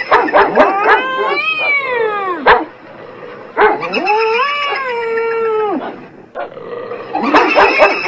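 A dog howling and yipping together with a cat yowling: long wavering calls that rise and then fall in pitch, broken by clusters of sharp short yips at the start and again near the end.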